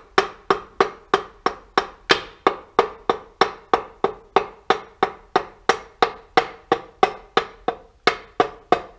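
A piston being tapped down its cylinder bore in a Clio 182 engine block with the wooden handle of a hammer: steady, evenly spaced knocks, about three a second, each with a short ring.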